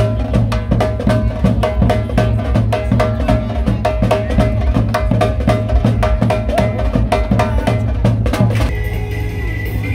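Street drumming on a snare-type drum and a bass drum, a fast, even rhythm of sharp stick strikes over deep beats. The drumming stops near the end.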